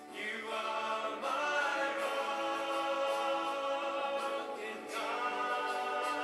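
Slow sung music: voices hold long notes, with a new phrase starting about a second in and another near the five-second mark.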